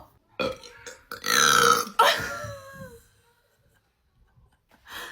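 A person burping after gulping carbonated cherry cola: one long, loud belch about a second in, its pitch sliding down as it trails off.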